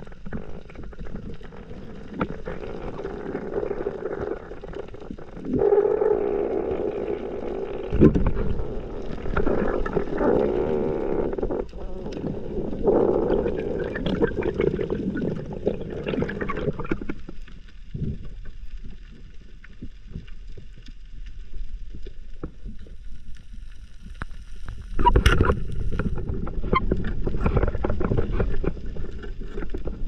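Muffled underwater noise picked up through a diver's camera housing: water swishing and bumping against it, with dull knocks, the sharpest about eight seconds in and another about twenty-five seconds in. It drops quieter for several seconds past the middle.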